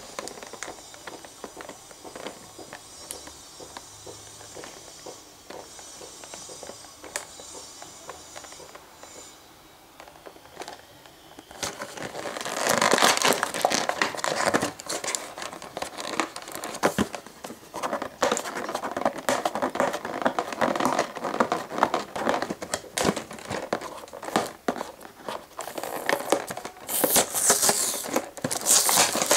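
Clear plastic blister packaging of a toy set crinkling and crackling as hands handle and open it. Quiet at first, then loud and dense from about twelve seconds in.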